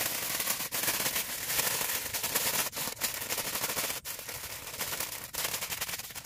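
Aluminium foil crinkling as hands fold and crimp a foil packet shut: a dense, rapid crackle that eases off a little in the last couple of seconds.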